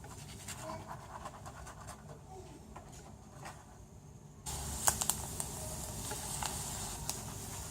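Peanuts frying in hot oil in a kadai: scattered faint crackles, then from about four and a half seconds in a steadier, louder sizzling hiss with frequent pops.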